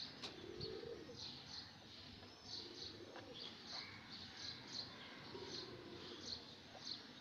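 Faint bird chirps in the background, short high notes repeating a few times a second.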